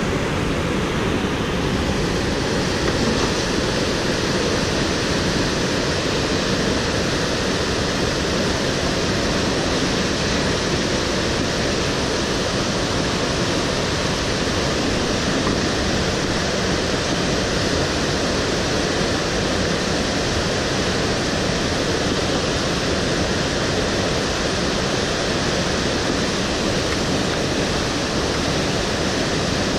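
Whitewater rapids rushing over boulders close by: a steady, unbroken roar of river water.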